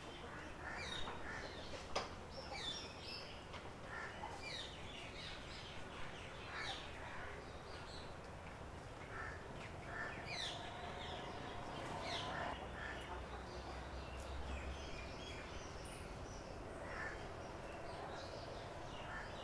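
Many short bird chirps and calls scattered throughout, over a light outdoor background, with one sharp click about two seconds in.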